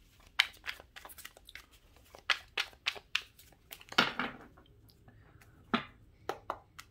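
Tarot cards being shuffled and handled: a run of irregular sharp snaps and taps of the cards, the loudest about half a second in and again about four seconds in.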